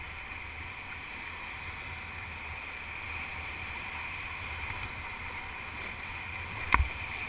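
Steady rush of river whitewater, with a low rumble underneath. A single sharp knock comes near the end.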